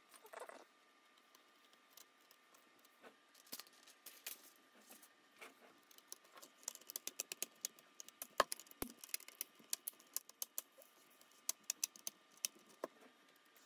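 Plastic screen bezel of an HP EliteBook 840 G4 laptop being pressed back onto the display lid, its clips snapping into place as a run of small sharp clicks. The clicks are sparse at first and come thick and fast in the second half.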